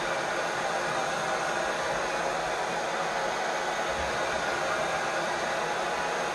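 Handheld hair dryer blowing steadily on its low heat setting, warming the adhesive of freshly applied pedalboard Velcro tape.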